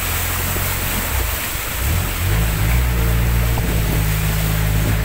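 A boat's engine runs steadily, eases off briefly, then speeds up about two seconds in and holds at the higher speed, with a hiss of water and wind under it.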